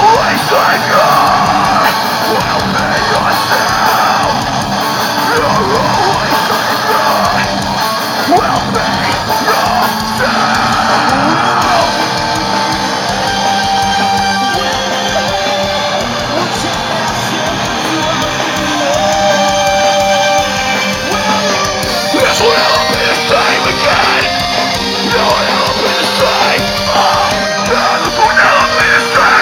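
A heavy rock band playing live: distorted electric guitars and drums with a shouted, screamed lead vocal, heard loudest near the start and again in the last several seconds.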